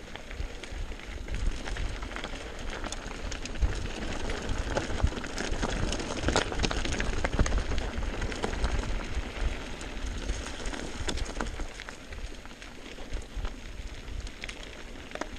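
Mountain bike rolling down a rocky dirt singletrack: tyres crunching over gravel and loose stones, with frequent short clicks and rattles from the bike, over a low rumble of wind on the microphone.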